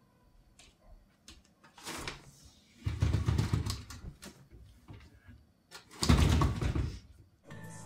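Closet door opened about three seconds in and shut about six seconds in, with clothes rustling between as folded clothing is set on a shelf.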